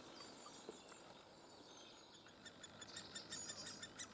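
Great spotted woodpecker nestling begging from inside the nest hole: a faint, rapid series of short, high calls, about six a second, starting about halfway through.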